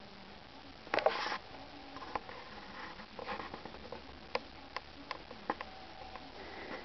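Light handling noises: a brief rustle about a second in, then scattered small clicks and taps.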